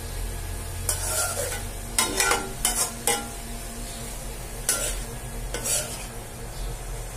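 A spatula scraping and turning bean sprouts and beef in an aluminium wok, about six separate scrapes at uneven intervals, over the light sizzle of the frying food.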